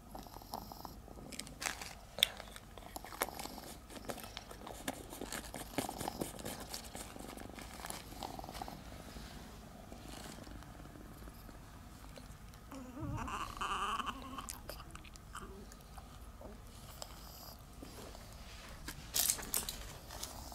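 A cat eating, with quiet chewing and crunching and scattered small clicks.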